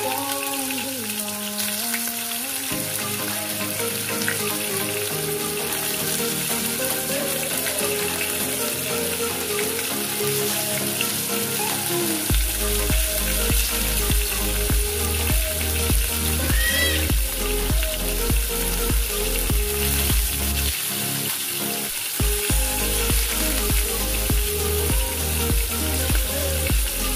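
Hot oil sizzling steadily as flour-coated tawilis fry in a shallow pan. Background music plays over it, with a bass beat coming in about halfway through.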